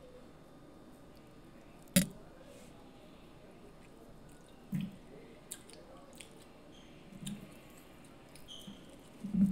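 Close-miked eating sounds: chewing and the small clicks and squishes of shellfish being peeled by hand. A single sharp click about two seconds in is the loudest sound, and a few soft low thumps follow.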